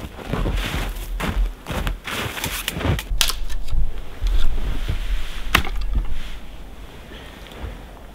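Boots crunching through snow with a few sharp clicks and snaps, over wind rumbling on the microphone; it all grows quieter after about six seconds.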